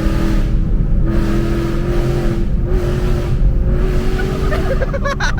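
Ford Mustang GT's 5.0 Coyote V8 breathing through long-tube headers, running loud under way, its engine note stepping and drifting in pitch.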